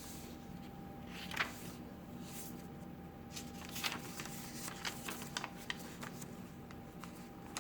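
Paper pages, tags and cards of a handmade junk journal being handled and turned: light rustles and soft clicks scattered through, over a faint steady hum.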